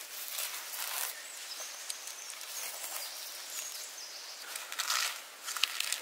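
Moss being pulled and rubbed off a tree trunk by hand: short bursts of dry rustling and tearing near the start and again about five seconds in, over a steady faint hiss.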